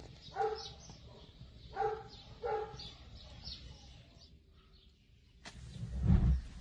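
Four short animal calls in the first three seconds, then a sudden change in the sound and a loud low thump near the end.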